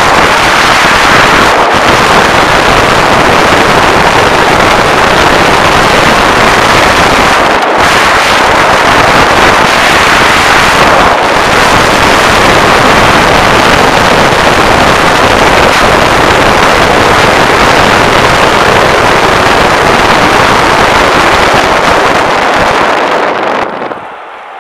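Steady, loud rushing of wind and road noise at a camera on a moving car pacing the cyclist, with a few brief dropouts. About a second before the end it falls away sharply and loses its hiss.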